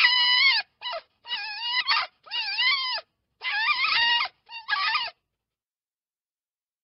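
A fox giving a series of about seven short, high-pitched calls with wavering pitch, which stop about five seconds in.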